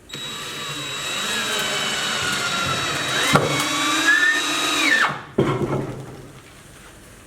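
INGCO 20V cordless drill in screw mode, driving a screw into lumber: the motor whines up as the trigger is pulled and runs for about five seconds, its pitch sagging and recovering under load, with a sharp click midway. It then winds down as the trigger is released, followed by a short knock.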